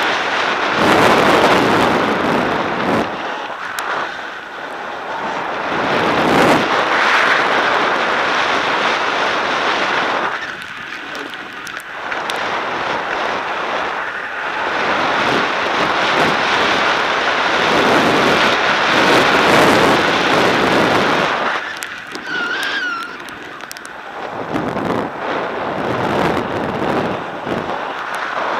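Wind rushing over the camera microphone and edges scraping across packed snow during a fast run downhill, swelling and easing every few seconds.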